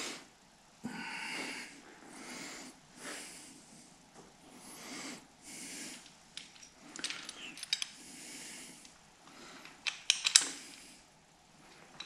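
A man huffing and puffing, heavy breaths through the nose about once a second as he strains to line up bolts, with light metallic clinks of small steel parts against the engine's timing gear. The clinks come in quick flurries past the middle and loudest near the end.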